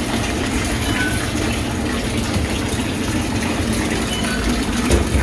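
Water gushing steadily from the fill into a PowerSoak sink's wash tank as it fills, a continuous rushing with a low rumble. One light knock near the end.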